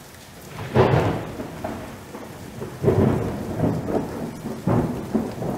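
Thunderstorm sound effect: three loud rolls of thunder, about two seconds apart, over a steady hiss of rain.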